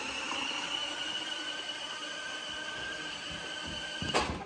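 Toy remote-control monster truck's small electric drive motor and gears whining steadily, then one sharp knock near the end as it crashes into something.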